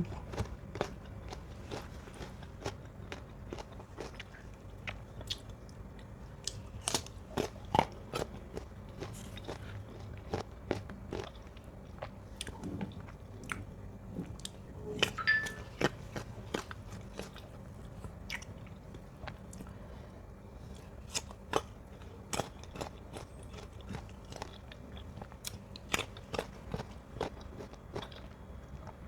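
Close-miked crunchy biting and chewing of firm, sour mango: irregular sharp crunches and mouth clicks throughout.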